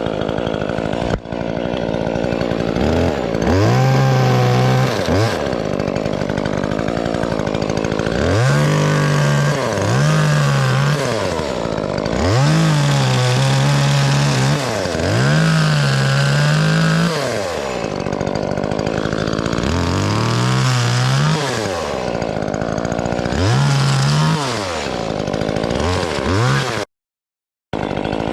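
DeWalt 60V 14-inch top-handle battery chainsaw cutting tree limbs, spun up and let down again in about nine trigger pulls, its electric whine rising, holding and falling each time. The sound cuts out for about a second near the end.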